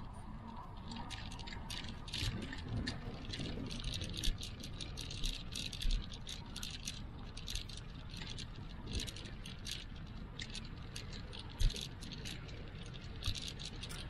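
Dense, irregular rattling clicks, several a second, with a few short dull thumps over a low rumble.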